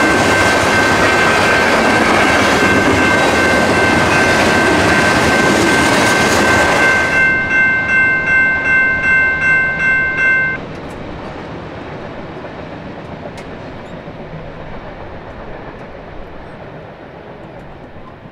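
Diesel locomotive's multi-chime horn sounding a long chord over the loud rumble of a passing train. The horn pulses in loudness for its last few seconds and cuts off about ten seconds in. The train's rumble then fades away.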